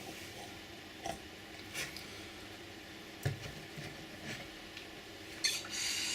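Light clicks and taps of small metal parts and tools being handled, with a dull knock about three seconds in and a short hiss near the end.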